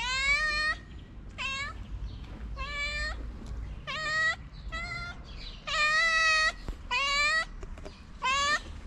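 Calico cat meowing repeatedly, about eight separate meows roughly a second apart, some short and two longer ones around the middle. It is a stray cat asking for food and attention.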